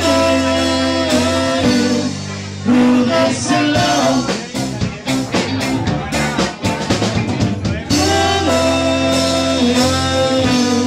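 Live band playing with electric guitars, drums and a trombone; the trombone holds long notes near the start and again toward the end, with drum hits in between.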